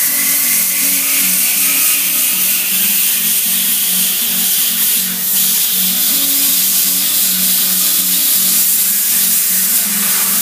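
Hypertherm Powermax30 plasma cutter's arc cutting through steel channel: a loud, steady hiss, with background music underneath.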